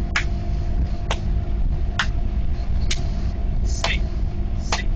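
Sharp ticks about once a second, the ticking of the mysterious ticking noise, over the steady low rumble of a bus engine.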